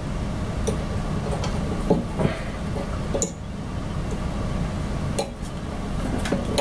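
Scattered light clicks and handling noise from small flush cutters working at a plastic zip tie on a metal heatsink, over a steady low rumble.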